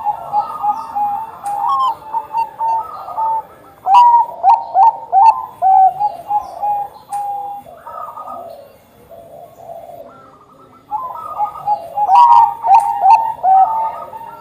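Zebra dove (perkutut bangkok) singing its rapid cooing song in series of short, clipped coos. There are two loud bouts, one about four seconds in and one near the end, with softer cooing between them.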